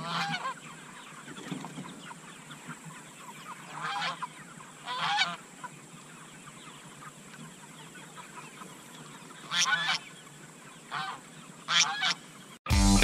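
Domestic geese honking: short calls now and then, singly and in quick pairs. Guitar music cuts in abruptly at the very end.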